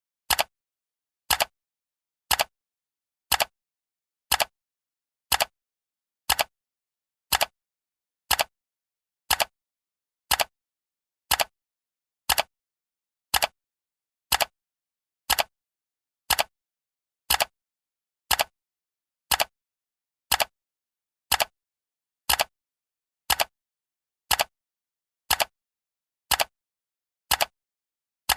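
Steady clock-style ticking of a countdown timer, one short sharp tick each second with silence between the ticks.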